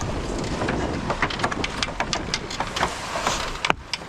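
Wind on the microphone and water rushing along the hull of a sailboat under way, with a run of sharp clicks and knocks and one loud knock near the end.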